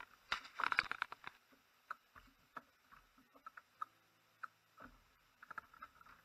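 Faint small taps, clicks and patters from a fishing kayak and its gear on the water: a quick cluster in the first second, then single ticks scattered through the rest.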